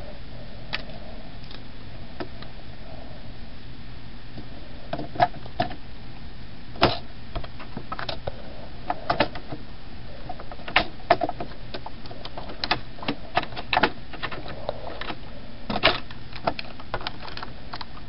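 Scattered small clicks and knocks of hands handling the camera and the laptop's heat sink and metal parts, coming more often in the second half, over a steady hiss.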